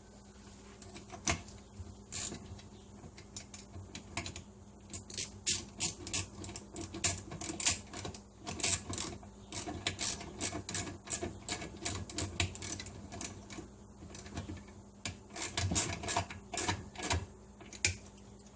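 Light metal clicks and clinks of small hardware being worked by hand: nuts and lock washers threaded onto the compressor's mounting bolts and snugged with a socket. The clicks come in irregular clusters, sparse at first and thickest in the middle, over a faint steady hum.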